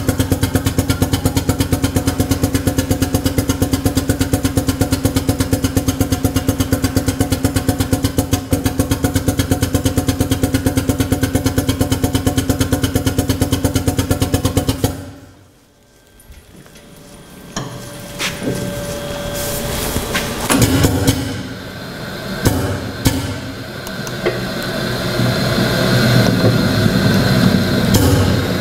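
Air-driven hydraulic power pack of a pneumatic drum tipper running with a rapid, steady pulsing, then cutting off abruptly about halfway through. After a brief lull, uneven machine noise with clicks builds up again as the drum is brought back upright and lowered.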